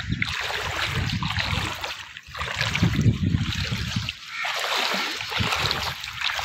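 Floodwater sloshing and splashing around someone wading through it, in uneven surges.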